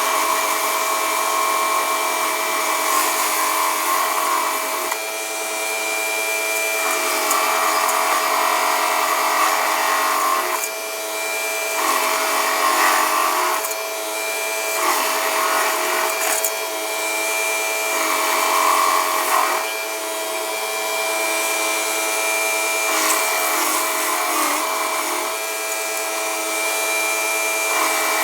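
Woodland Mills WG24 PTO stump grinder running behind a John Deere 3039R tractor, its cutter wheel grinding into a stump. A steady machine whine runs throughout, and the grinding noise swells and eases every few seconds.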